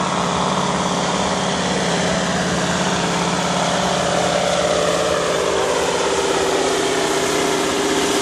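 Heavy diesel truck engine running hard under load as it pulls, a steady loud drone with a tone that climbs slowly partway through.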